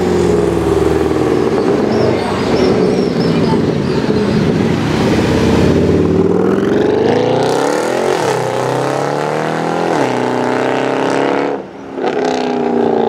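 Mercedes C63 AMG's 6.2-litre V8 exhaust, loud, accelerating in bursts: the pitch climbs and drops back twice in the second half, with a short break near the end.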